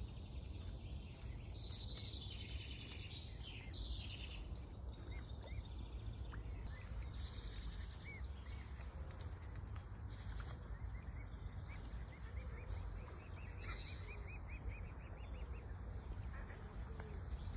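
Several birds chirping and calling over a steady low background rumble, with a rapid run of short repeated notes in the second half.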